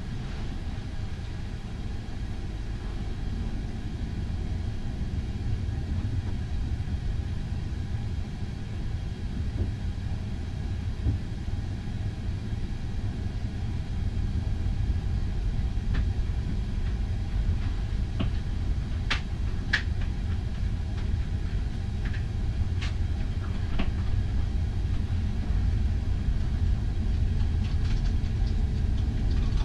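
Low, steady rumble of a passenger ferry's engines and hull heard on board, slowly growing louder, with a few sharp clicks or knocks around the middle.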